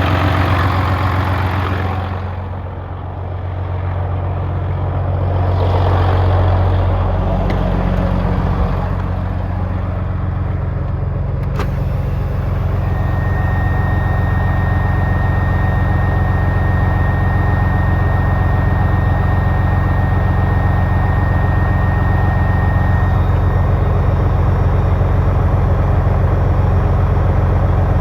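Volvo semi truck's diesel engine idling, its air compressor suspected bad. The engine note sags and picks back up in the first several seconds, there is a single sharp click about twelve seconds in, and a steady high whistle holds for about ten seconds after it.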